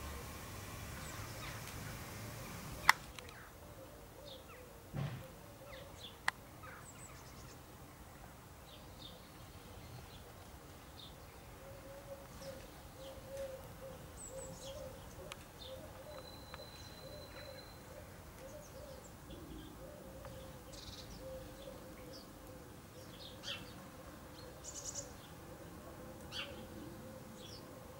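House sparrows chirping in short, scattered calls. A sharp click about three seconds in, louder than the birds, and another about six seconds in.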